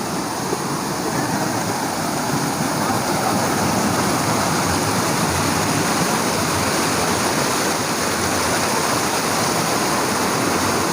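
Water rushing down a rocky waterfall stream: a steady, dense rush that grows a little louder over the first few seconds.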